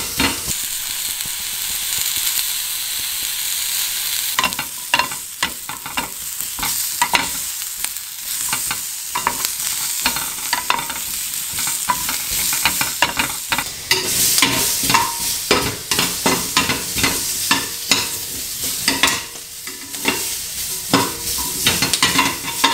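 Bell pepper strips sizzling in a grill pan with plenty of olive oil, with frequent clicks and scrapes of metal tongs against the pan as the pieces are turned.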